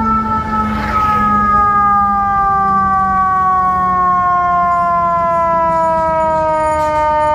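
Fire engine siren on a Seagrave Attacker pumper, wailing with a pitch that falls slowly and evenly. A short hiss about a second in.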